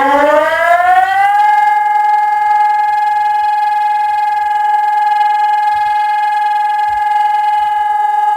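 FS 2400 siren sounding during a test. Its pitch rises for about the first second and then holds a loud, steady tone.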